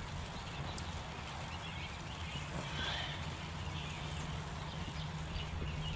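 Ground beef, onion and diced green chilies sizzling in a cast-iron skillet on a grill, with faint scattered crackles as the chilies drop in, over a low steady hum.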